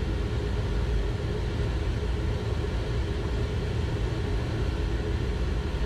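Steady cockpit noise of a Learjet 60XR on short final: an even rush of air with a low rumble beneath it and a faint steady hum, unchanging throughout.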